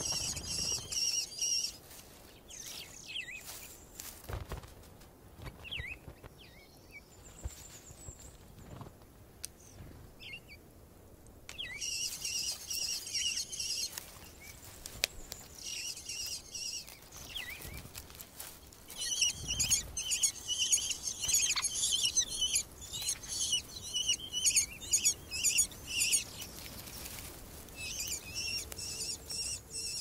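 Tenerife blue chaffinch nestling begging to be fed with rapid high chirps, in several bouts with the longest and loudest in the second half.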